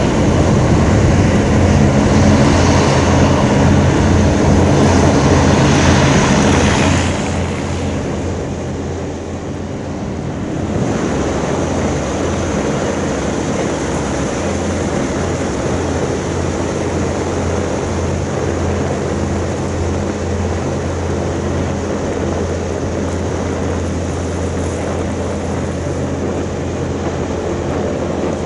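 Griffon 12000TD passenger hovercraft running, its ducted propellers and engines giving a loud, steady drone with a deep hum. The level dips about seven seconds in, then holds steady again from about eleven seconds.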